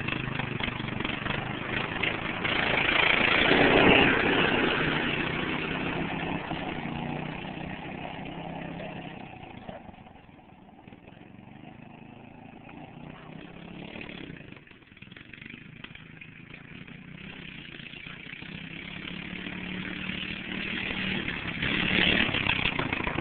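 Lawn mower engine running steadily. It is loudest about four seconds in, fades to its faintest in the middle, and grows loud again near the end, as if the mower moves away and comes back.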